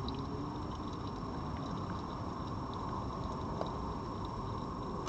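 Steady background hiss with faint, scattered clicks of a red fox crunching dry food from a bowl.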